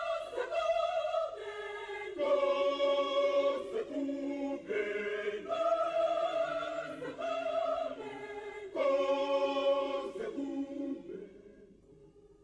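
Choral title music: voices singing long held notes that change pitch about every second, fading out near the end.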